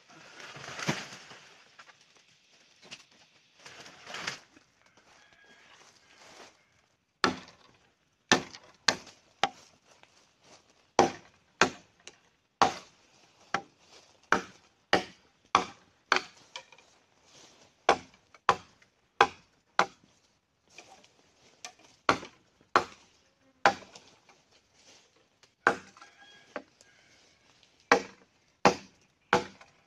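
A bolo (machete) chopping a felled bamboo pole: sharp, hollow-wood strokes about one or two a second, in runs with short pauses, starting about seven seconds in. A loud rustling noise comes about a second in.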